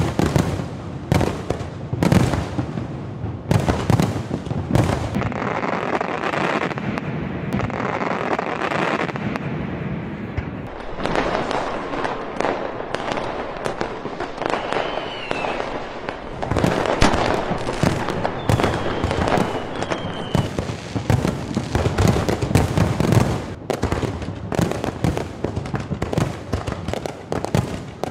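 Aerial fireworks display: shells bursting in rapid, irregular bangs, with a stretch of dense crackling about a third of the way in and a few short falling whistles near the middle.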